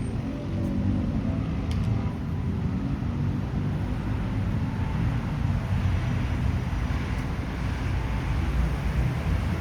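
Steady low rumble of outdoor city ambience: distant traffic, with wind buffeting the microphone.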